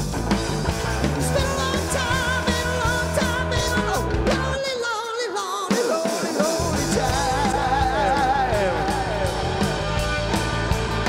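Live rock band playing: electric guitar, bass guitar and drums with a male singer. About four and a half seconds in, the bass and drums drop out for a moment under wavering held notes, then the full band comes back in, and the singer holds long notes with vibrato.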